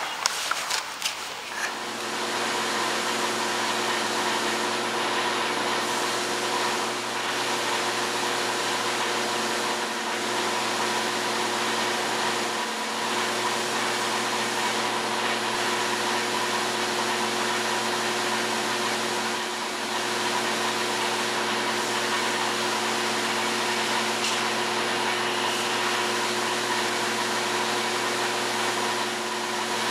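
Paint spray gun hissing steadily as black acrylic enamel is sprayed on in full wet coats, over a steady motor hum, with a few knocks in the first two seconds.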